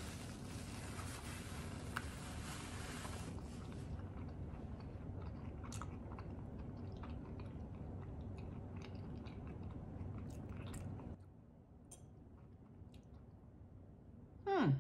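A person chewing a mouthful of breaded chicken sandwich with her mouth closed, with small wet clicks, a paper napkin rubbing across her mouth for the first few seconds, and a short falling 'mm' near the end.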